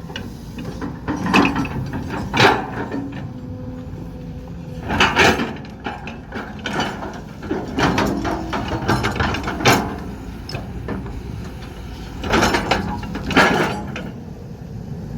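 Loose, worn bucket of a Kobelco SK200 Super excavator clanking metal on metal as the bucket works, about seven loud knocks at uneven intervals, over the steady running of the excavator's engine. The looseness is a sign of wear in the bucket's fit.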